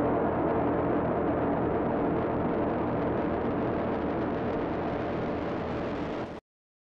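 Steady, dense droning noise with held low tones from the closing soundtrack. It eases off slightly and then cuts off abruptly into silence about six and a half seconds in.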